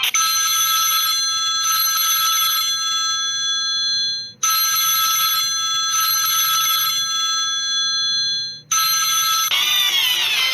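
Preloaded ringtone on a Samsung GT-I5500L phone: bright, bell-like ringing tones in a pattern that repeats about every four and a half seconds, with a brief break between repeats. Near the end a different ringtone starts, with falling, sweeping tones.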